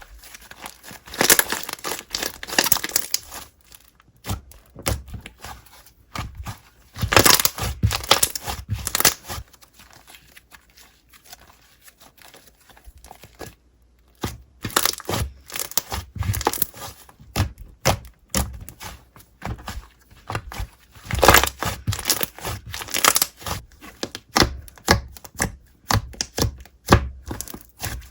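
Slime being squished, stretched and pressed by hand, giving irregular crackling, popping and crinkly tearing sounds in clumps, with a quieter stretch about halfway through.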